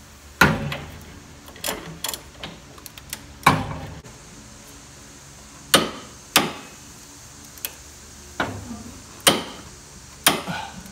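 Tekton click-type torque wrench working the transmission mount bolts: about ten sharp metallic clicks and knocks at uneven intervals as the wrench is pulled, ratcheted and reset. The torque wrench's click signals that a bolt has reached its set torque.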